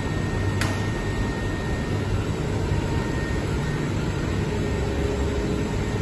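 SunRain 10 kW air-source heat pump outdoor unit in its defrost cycle: a steady machine hum with the fan stopped while the ice melts off the coil. One sharp click about half a second in.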